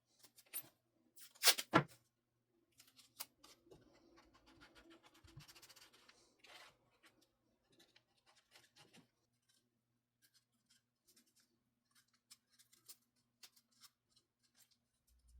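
Quiet handling sounds in a wood shop: scattered light clicks and scratches, two sharp knocks about a second and a half in, and a few seconds of soft scraping, over a faint steady hum.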